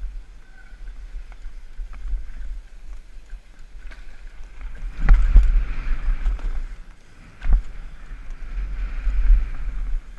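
Downhill mountain bike ridden fast over a loose, dusty dirt trail, recorded from a helmet-mounted camera: wind buffets the microphone while the tyres roll and skid over the dirt and the bike rattles. Two sharp knocks stand out, about five seconds in and again about two and a half seconds later.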